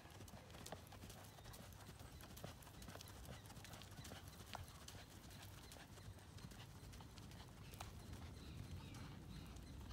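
Faint hoofbeats of a horse in collected trot, half-passing across sand arena footing, over a low steady rumble.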